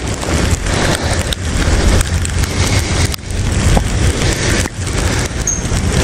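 Continuous rushing noise of a bicycle being ridden through falling snow, its tyres running on the snowy road.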